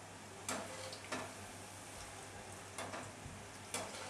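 Flour-coated okra pieces deep-frying in hot oil in a steel kadai, a faint steady sizzle, with four sharp clicks as a wire spider strainer knocks against the pan while turning them.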